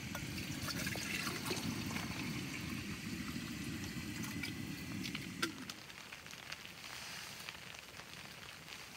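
Small canister gas stove burning with a steady low rush that stops about five and a half seconds in, with a click as it stops. Fine patter of rain on the tent goes on throughout.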